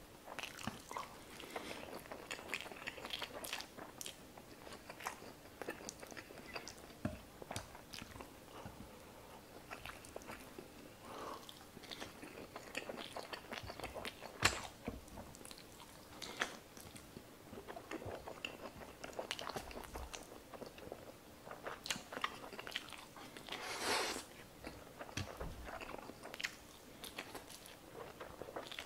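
Close-miked chewing and slurping of spicy stir-fried instant noodles, with many short wet mouth clicks.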